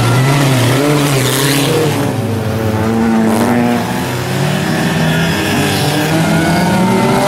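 A pack of old saloon and hatchback autocross cars racing on a dirt track: several engines revving hard at once, their pitches overlapping and rising and falling as the drivers work the throttle.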